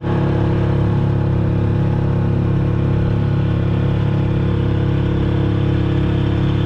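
Small Honda four-stroke outboard motor running steadily at cruising throttle, pushing a small boat along at an even, unchanging pitch.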